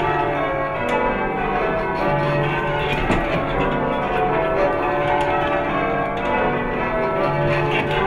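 Bradford Cathedral's ring of church bells being rung full-circle by a band pulling on ropes: a continuous, evenly paced stream of overlapping bell strokes.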